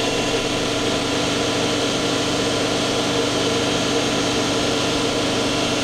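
Miyano BND-34T5 CNC turning center running with its spindle turning at 3000 rpm: a steady machine whir with several constant tones.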